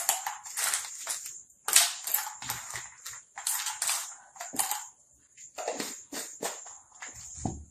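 Buttons poured into a bottle, clattering against its sides and each other in several short bursts, with a dull thud near the end.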